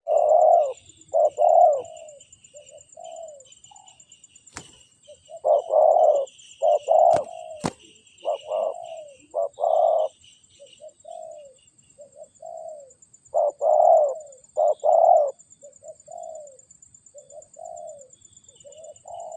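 Spotted dove (tekukur) cooing over and over in short phrases. A steady high-pitched buzz runs under it, with faint chirps of other birds and a few sharp clicks.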